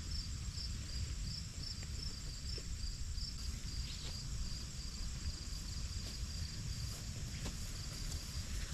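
An insect chirping steadily in short, evenly spaced high-pitched pulses, about two or three a second, over a low rumble.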